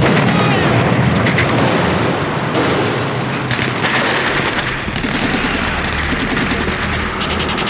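Rapid automatic gunfire in a dense, continuous battle din, with anti-aircraft gun fire among it.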